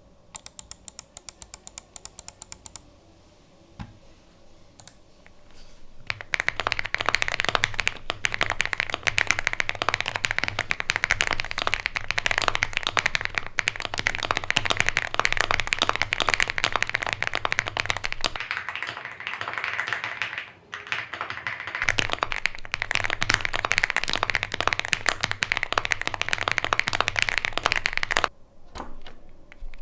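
Typing on a Heracles 80 mechanical keyboard with factory-lubed Gateron Cream Soda switches and GMK keycaps. About five single keystrokes a second for the first few seconds, then after a short lull, fast continuous typing that goes on until near the end, with one brief pause partway through.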